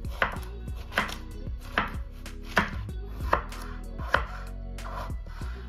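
A knife chopping vegetables (zucchini, potatoes or grape tomatoes), with sharp, evenly paced strikes about every 0.8 s.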